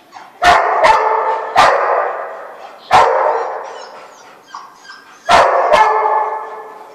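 Dog barking six times, sharp loud barks that ring on in a large echoing hall, the first two and the last two coming close together.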